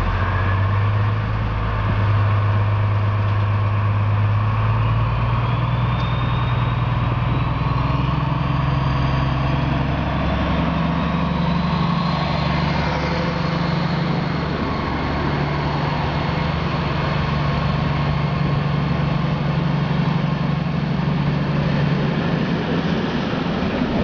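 DB class 218 diesel-hydraulic locomotive's engine working hard as it pulls a regional train away from a standstill, its low, steady note stepping up in pitch as it accelerates, with a high whine that rises alongside it.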